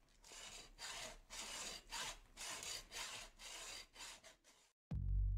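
A hand tool rasping back and forth on wood in even strokes, about two a second. Near the end, loud music with a heavy bass beat starts.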